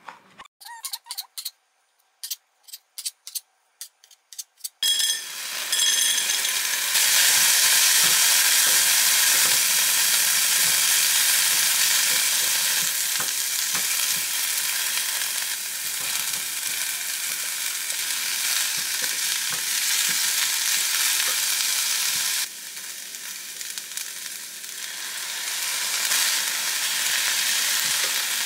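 A knife cuts tempeh on a cutting board with a string of sharp taps. From about five seconds in, frozen mixed vegetables fry in a hot pan with a loud, steady sizzle, stirred with a silicone spoon. Near the end the sizzle drops suddenly, then builds again.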